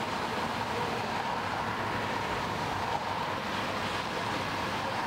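Steady outdoor street ambience: an even hiss and rumble with a faint steady hum, no distinct events.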